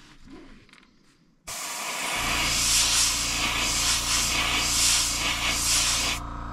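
Airbrush spraying paint onto a crankbait lure: a steady hiss of air and paint that starts about a second and a half in and cuts off shortly before the end, over a steady low hum.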